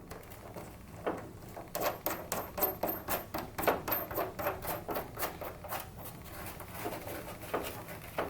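A nut being threaded and tightened onto a bumper quick-release push button: a run of light, quick clicks, about three or four a second, that thin out about six seconds in.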